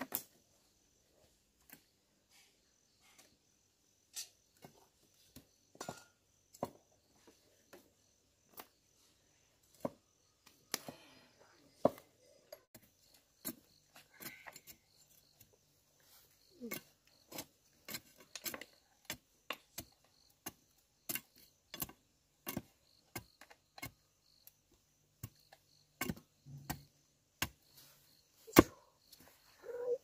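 Irregular sharp clicks and knocks, coming a few a second in the second half: a machete blade cutting and whittling a bamboo stick up close.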